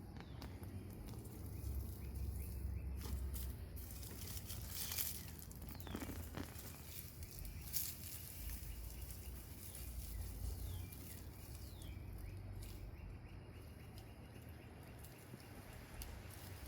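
Faint rustling and scattered soft clicks of hands digging through garden soil while harvesting potatoes, with a few short high chirps.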